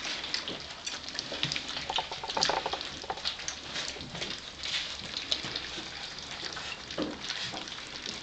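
Litter of four-week-old Gordon setter puppies lapping and smacking at wet food: many small, irregular wet clicks and slurps.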